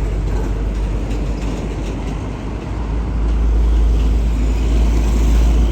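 Tour bus passing close by, its engine and road noise making a heavy low rumble that swells about three seconds in.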